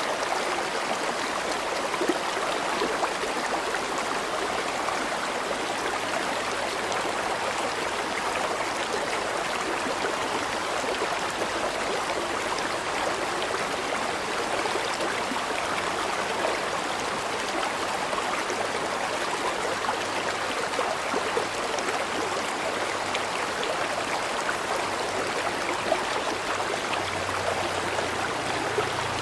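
River water flowing steadily, a continuous rushing and burbling.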